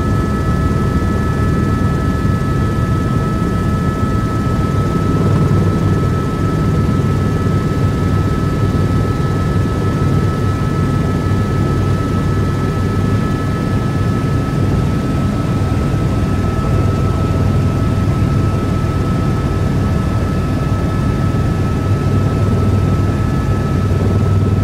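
Helicopter in flight heard from inside its cabin: a steady, loud drone of engine and rotors with a constant high whine over it.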